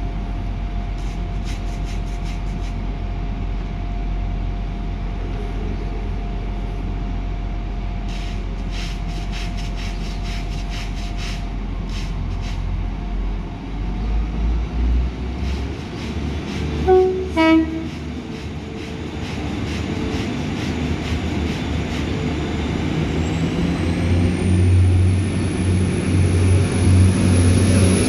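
Class 175 diesel multiple unit idling at the platform, then sounding a short two-tone horn about two-thirds of the way in. Its engines then open up with a rising whine as it pulls away, growing louder near the end.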